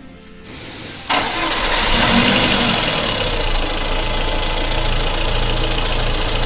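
Freshly overhauled VAZ-21083 four-cylinder engine starting: after a short quiet lull it catches suddenly about a second in and then runs steadily.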